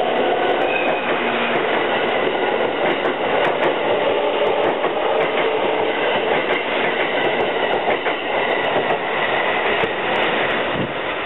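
N-gauge model train running along the track: a steady running noise of motor and wheels, with faint scattered clicks of the wheels over rail joints.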